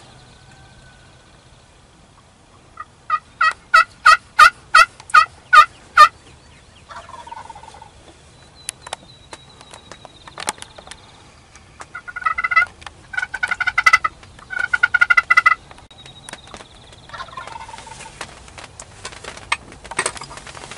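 Wild turkey calls: a run of about nine evenly spaced hen yelps a few seconds in, then, about 12 seconds in, three rapid rattling gobbles from a tom turkey in quick succession, loud and close.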